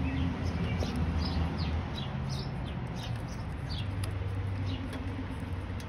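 A small bird chirping repeatedly, with short downward-sliding chirps about one or two a second, over a steady low hum.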